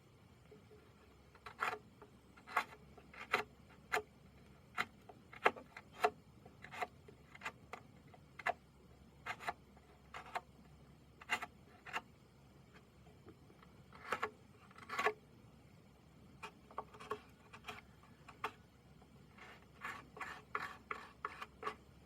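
Short, separate scraping strokes of a hand tool on wood, one or two a second with small pauses, coming faster in a cluster near the end.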